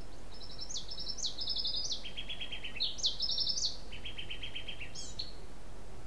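A songbird singing one long phrase of several fast trills, each a quick run of repeated notes, switching between higher and lower pitches and broken by sharp upward-sweeping notes; it stops about five seconds in.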